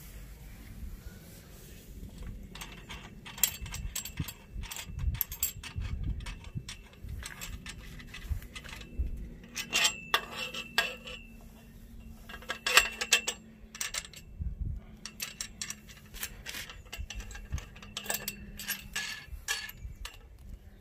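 Metal clicking, clinking and rattling as a bolt and wing nut are handled and fitted through the holes of a steel hammock-stand tube, with a couple of brief ringing clinks about ten and thirteen seconds in.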